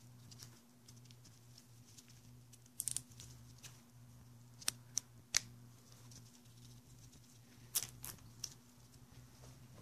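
Sharp clicks and taps from a gloved hand working the clutch lever and master cylinder on a motorcycle handlebar, in three small clusters, the loudest about five seconds in. A steady low electrical hum lies under them.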